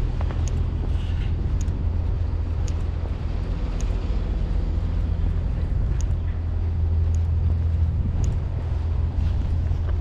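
A steady low engine drone, with faint light ticks about once a second.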